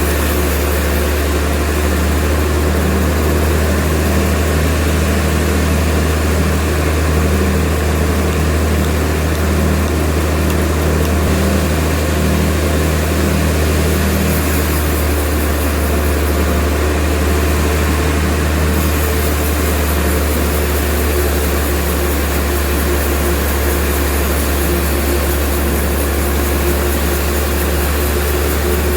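Sawmill machinery running: a loud, steady, low engine-like drone that holds at a constant level throughout.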